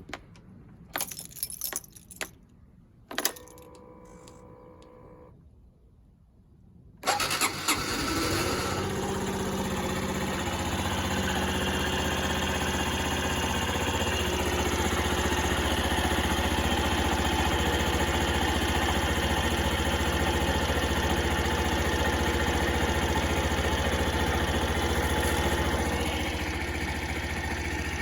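Honda Super Cub 50 (AA04) single-cylinder four-stroke engine: a few key clicks and jingles, a brief steady whir, then the engine starts about seven seconds in and settles into a steady idle, dropping slightly in level near the end.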